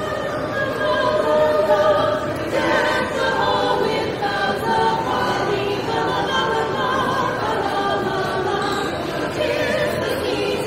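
A vocal group singing together in harmony with long held notes, choir-style, with no clear instruments.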